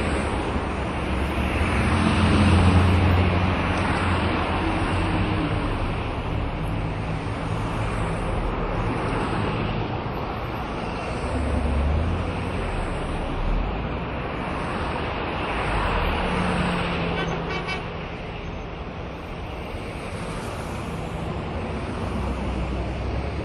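Road traffic with cars passing one after another: steady tyre and engine noise that swells and fades with each pass, loudest about two to three seconds in, with further passes around twelve and sixteen seconds in.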